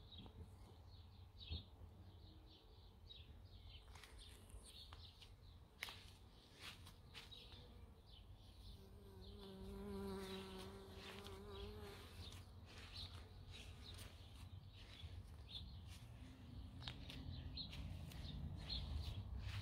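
A flying insect buzzing close by for about three seconds near the middle, over faint low rumble and scattered high chirps.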